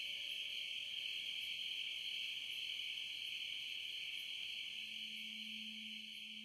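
Crickets chirring steadily in a high, even band, a nature layer under a meditation chant recording. About five seconds in, a low steady tone comes in beneath them.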